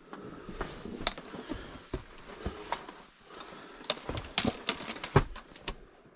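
Boots and hands scrambling over snowy rock: irregular sharp knocks and scrapes, clustered most thickly in the second half.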